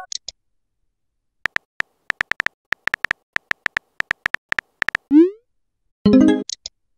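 Phone keyboard click sound effects tapping out a text message, several clicks a second. A short rising electronic bloop comes about five seconds in, and a brief cluster of electronic tones follows a second later.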